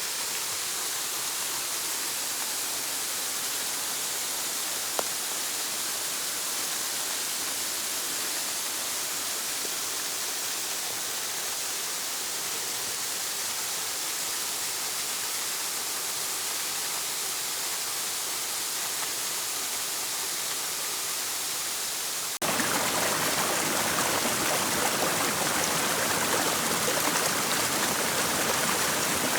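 Waterfall and its stream rushing steadily. About 22 seconds in it cuts to a louder, fuller rush of water.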